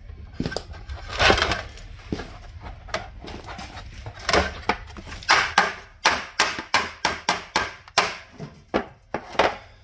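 Sharp knocks and clatter from a metal transmission oil pan being handled, with a longer scraping burst about a second in, then a fairly even run of about three knocks a second. The pan's magnet is coated in metal particles and loose fragments lie in it, the sign of internal transmission damage.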